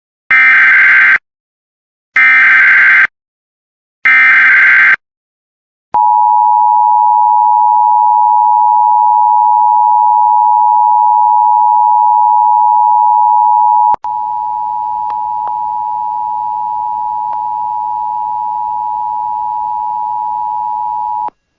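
Emergency Alert System signal announcing a blizzard warning: three short bursts of SAME digital header data, about a second apart, then the two-tone attention signal, a steady dual tone held for about fifteen seconds that drops a step in level partway through, with a few faint clicks.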